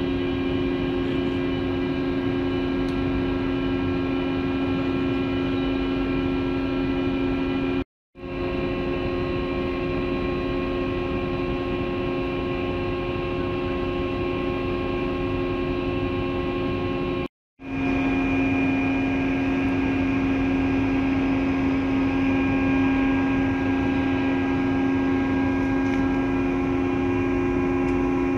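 Steady machinery hum of a container ship under way, a drone of several fixed low tones over a rushing noise, breaking off for a moment twice.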